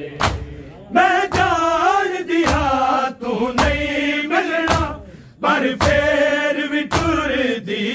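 Male voices chanting a Punjabi noha, a Shia lament, drawn out and unaccompanied, starting about a second in. Under it runs a steady beat of sharp thuds about once a second: the mourners striking their chests in unison (matam).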